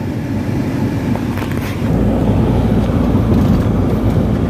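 Car running, heard from inside the cabin: a steady low engine and road rumble that gets louder about two seconds in.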